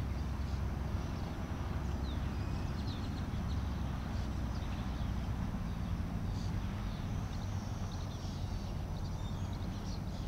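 Open-air ambience: a steady low rumble with a few faint, short bird chirps.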